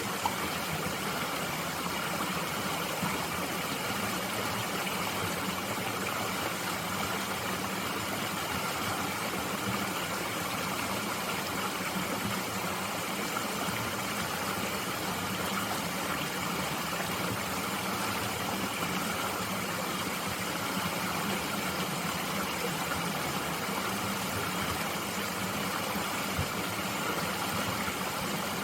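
Mountain stream flowing: a steady, even rush of water with no change throughout.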